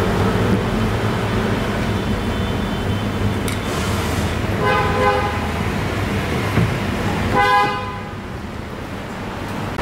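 Two short vehicle horn toots, about two and a half seconds apart, over a steady low background rumble.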